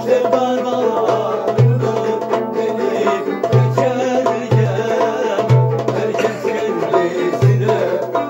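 Bağlama (saz) plucked rapidly in a Turkish folk tune, with a deep bass note pulsing at a steady beat underneath.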